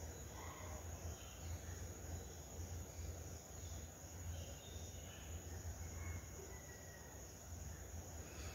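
Faint background: a low hum with a few faint, short high chirps scattered through it.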